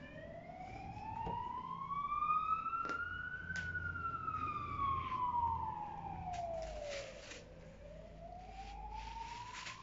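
A siren wailing, its pitch rising slowly for about three seconds, falling for about four, then rising again. Short clicks and crackles of plastic rustling and scuffling sound over it.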